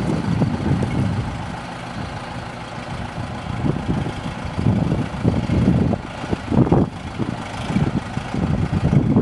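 Farm tractor engine running at low revs as the tractor reverses slowly.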